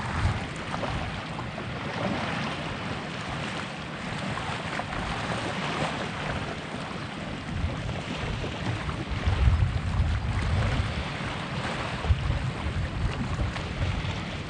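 Wind buffeting the microphone in uneven low gusts, strongest past the middle, over a steady wash of water lapping against a kayak's hull.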